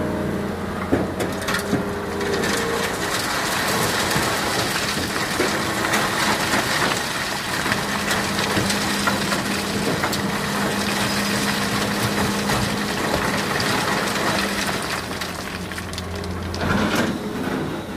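Diesel engine running under a dense, continuous crunching and rattling of sand and stones, typical of an excavator bucket loading sand into a dump truck.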